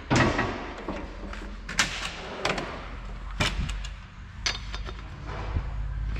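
A series of sharp knocks and clatters, about five of them with the loudest right at the start, over a low steady hum.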